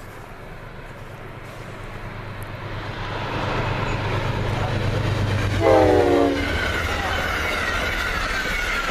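Amtrak P32 locomotive bearing down at speed, its noise building steadily, then a short blast of its Nathan K5LA five-chime horn about six seconds in that drops in pitch as the engine passes (Doppler effect), followed by the steady noise of the train going by.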